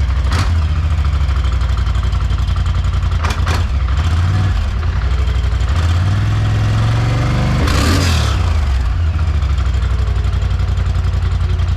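2019 Polaris Sportsman XP 1000 High Lifter's parallel-twin engine running through its stock exhaust. It idles steadily, and about two-thirds of the way through it revs up and drops back to idle.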